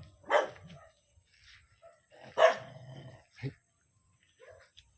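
A dog barking: two loud barks about two seconds apart, then a shorter, quieter one about a second later.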